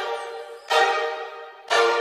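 Background music: a pitched instrumental chord struck about once a second, each one fading away before the next.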